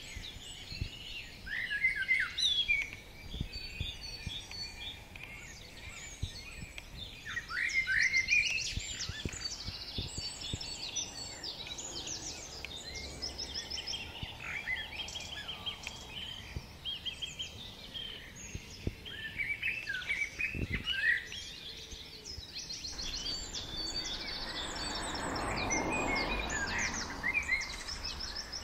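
Several small songbirds chirping and twittering, with quick repeated trills. Near the end a rushing noise swells up and fades under the birdsong.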